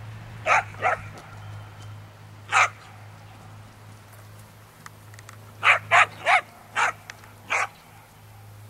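Dog barking in short, sharp barks: two near the start, a single bark, then a quick run of five.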